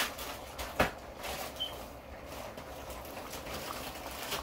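Pots of rice and curry boiling on a gas stove: a steady bubbling hiss, with one light click about a second in.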